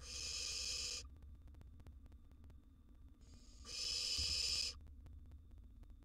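Barn owl nestlings giving two hoarse, hissing 'snore' calls, each about a second long: one right at the start and a longer one about three and a half seconds in. This harsh hiss is the call barn owl nestlings use to beg for food.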